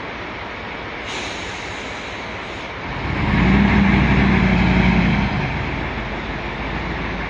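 Heavy truck's diesel engine running under load over a steady noisy background; it grows much louder about three seconds in, holds for a couple of seconds, then eases off.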